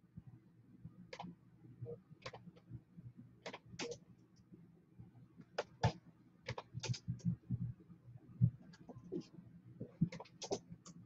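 Irregular light clicks and taps, a few a second, with a louder knock now and then, over a faint steady low hum.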